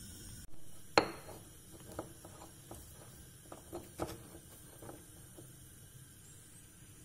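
Kitchenware being handled: one sharp knock about a second in, then a run of lighter clinks and taps, with a stronger tap about four seconds in.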